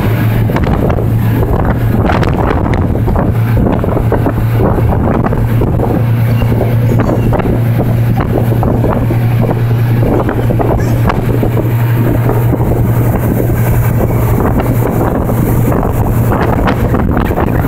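Car ferry's engine running with a steady low drone, half buried under strong, gusty wind buffeting on the microphone.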